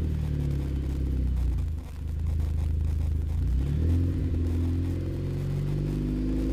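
2007 Chevrolet Cobalt SS four-cylinder with a ZZP catted downpipe and GMPP cat-back exhaust, running at idle as heard from behind the tailpipe. The engine note wavers slightly up and down, with a brief dip about two seconds in.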